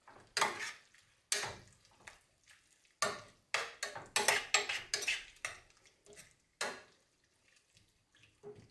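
A metal spoon stirring stew in a stainless steel pot, clinking and scraping against the pot's sides in irregular knocks with short pauses between them.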